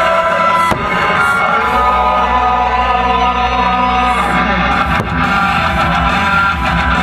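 Loud music with guitar and singing.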